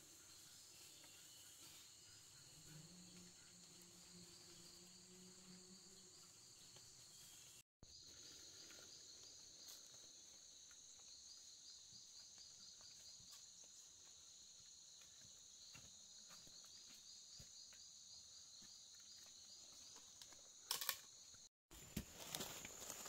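Faint, steady high-pitched insect trilling with a pulsing rhythm in it, typical of crickets or cicadas in a forest. A couple of brief, louder rustling noises come near the end.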